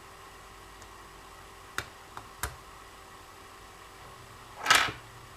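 Small plastic battery connectors (T-plugs) being handled: a few light clicks about two seconds in, then a brief, louder scrape near the end.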